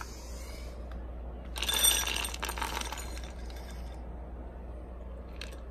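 Dry dog kibble poured from a scoop into a dog bowl: a clattering rattle of hard pellets hitting the bowl and each other. It starts about a second and a half in, is loudest at once, and tails off over about two seconds.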